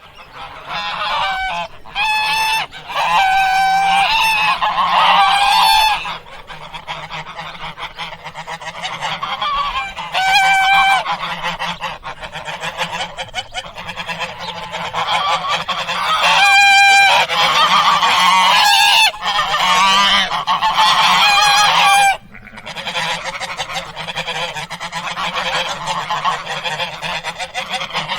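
Domestic waterfowl calling: loud, repeated honking calls in clusters with short pauses, then softer, more continuous calling for the last several seconds.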